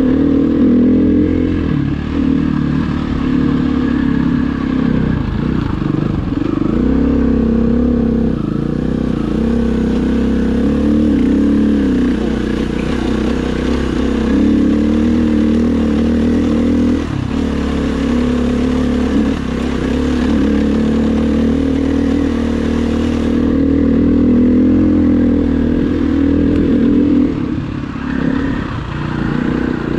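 Dirt bike engine running under load on a rough, rocky climb, its pitch rising and falling with the throttle.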